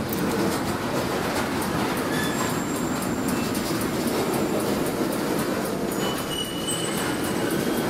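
Train rolling past: a steady rumble of wheels on rail, with thin high wheel squeals coming and going.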